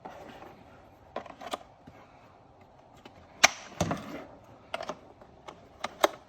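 Small plastic dash switches and switch blanks being handled and pushed into a switch panel: a handful of scattered sharp clicks and knocks, the loudest about three and a half seconds in, followed by a duller knock.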